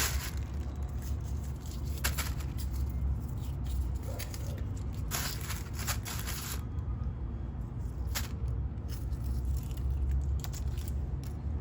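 Soft rustling and a few scattered light clicks of small onions, garlic and a small basket being handled, over a steady low hum.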